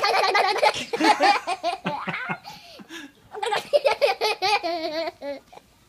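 A toddler laughing hard while being tickled, in rapid bursts of giggles with a short lull about halfway through.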